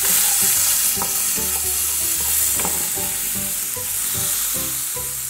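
Sliced okra frying in olive oil in an open pan, sizzling steadily while it is stirred, with the utensil scraping and knocking against the pan every so often.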